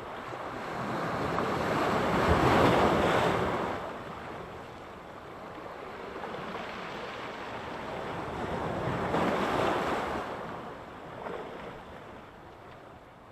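Sea surf: waves breaking on the shore and washing back, with two swells in loudness, the first peaking about two seconds in and the second about nine seconds in, each fading away afterwards.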